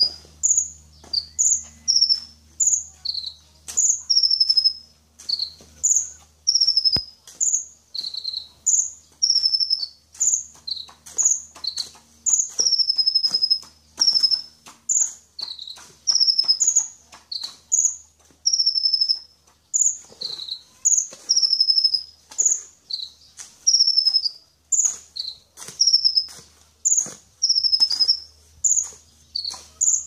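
Caged sunbird (the 'kolibri ninja' of Indonesian bird keepers) singing: a long, steady run of high, thin chirps, each a quick note dropping in pitch, about one or two a second.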